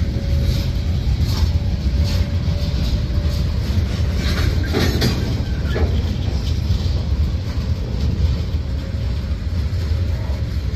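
Freight train cars rolling past: boxcars and a covered hopper running by with a steady low rumble of wheels on rail, scattered wheel clicks, and a brief cluster of sharper clanks about four to five seconds in.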